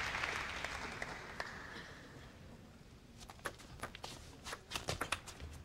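Applause dying away, then a table tennis rally: the ball clicking sharply off the bats and table in a quick, irregular run of ticks through the last two and a half seconds.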